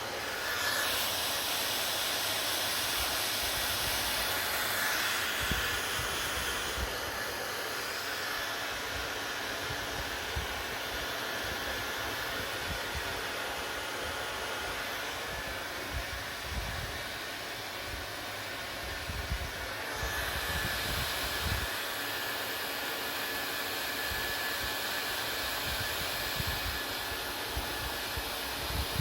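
Hair dryer running: a steady rush of air with a faint whine and uneven low rumbles. The sound shifts about a second in and again around twenty seconds in.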